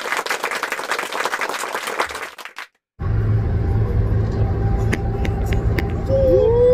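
For the first few seconds, clapping-like noise like applause, which cuts off abruptly. After a short gap, the steady low road and engine noise inside the cab of a GMC Sonoma GT at highway speed, with a couple of short pitched, voice-like glides near the end.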